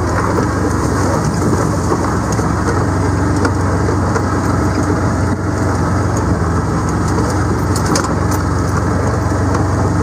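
Engine of a vehicle being driven slowly along a dirt track, running steadily with a low hum, heard from on board.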